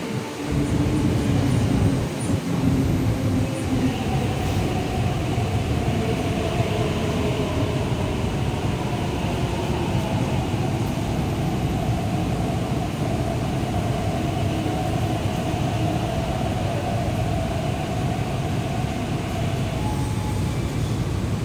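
Electric MTR East Rail Line train pulling into the platform and braking to a stop, with a continuous rumble of wheels on rail. A steady whine from its traction equipment sets in a few seconds in and dies away near the end as the train comes to rest.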